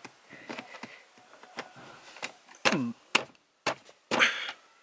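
Hands pressing a plastic car interior trim panel in the footwell back into place: faint rustling and rubbing, then a few sharp plastic knocks and clicks in the second half as the panel is closed up.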